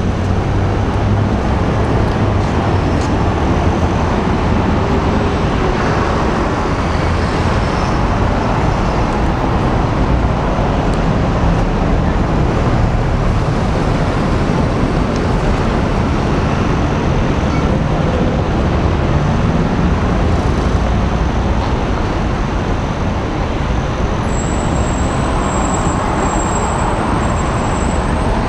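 Steady city street traffic noise, with cars passing on a busy road.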